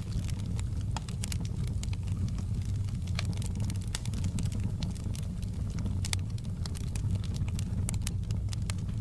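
Wood fire crackling in a fireplace: a steady low rumble of the flames with frequent sharp pops and snaps scattered irregularly throughout.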